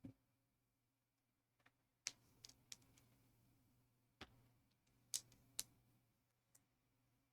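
Faint clicks of plastic building bricks being pressed and snapped together, about seven short sharp clicks scattered from about two seconds in.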